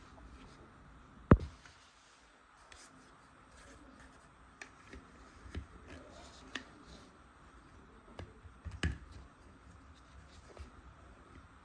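Scattered sharp clicks and taps of small plastic toy-tool pieces being handled, with the loudest click about a second in and another strong one near the end.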